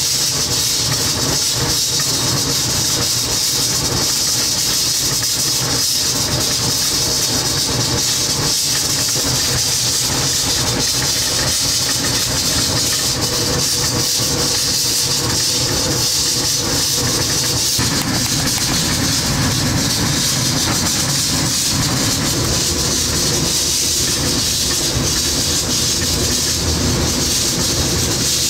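Loud, steady hiss and rumble of a commercial kitchen, with water pouring into a large steel pot of raw pork partway through.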